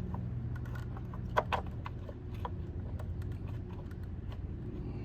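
Scattered light clicks and taps of a car battery and its metal hold-down being handled in an engine bay, with one sharper knock about a second and a half in, over a steady low hum.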